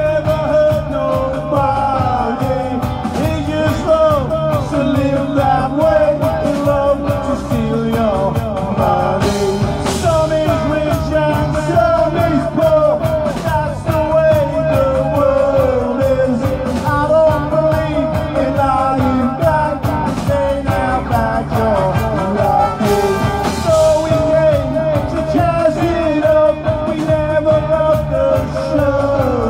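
Live band playing a loud rock-ska number with a steady beat.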